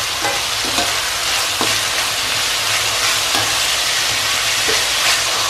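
Chopped vegetables sizzling in hot oil in an ordinary (not non-stick) kadai on a high flame: a steady frying hiss. A spatula stirring them clicks against the pan every second or so.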